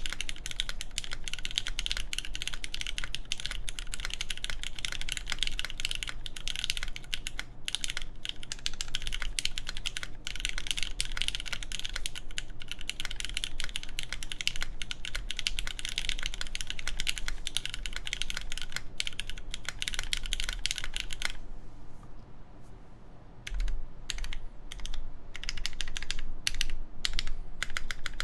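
Fast, steady typing on a Machina Cloudnine mechanical keyboard with lubed Cherry MX Black clear-top linear switches, a full aluminum plate and GMK Carbon keycaps. Near the end the typing stops for about two seconds, then picks up again as slower, separate keystrokes.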